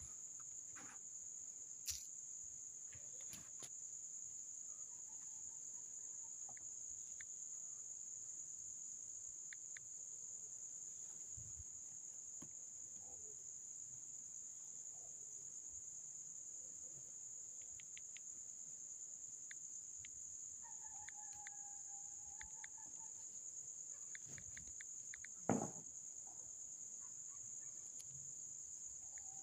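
Faint, steady, high-pitched insect trilling, with scattered faint clicks and one short thump near the end.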